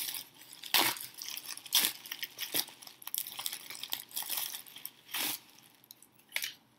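Clear plastic bubble wrap rustling and crinkling as it is pulled off and unwrapped from a packed object, with several sharper crackles.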